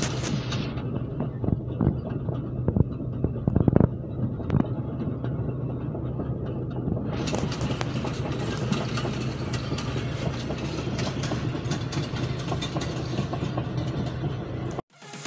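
Heritage train carriages rolling past, their wheels clacking over the rail joints in irregular knocks above a steady low hum. Heard from inside a car through the windscreen.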